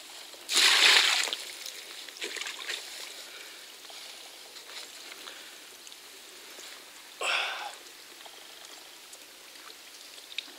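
Water poured from a collapsible fishing bucket onto a carp on the unhooking mat: a loud rush of pouring and splashing for about a second, half a second in. A second, shorter rush of noise about seven seconds in, with light rustling between.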